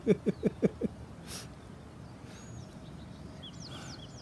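A quick run of about seven short yelps in the first second, each dropping in pitch, followed by a few thin, high bird chirps near the end.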